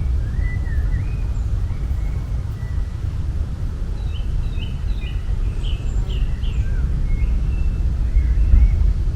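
Songbirds chirping and calling over a steady low rumble, with a quick run of short repeated notes in the middle.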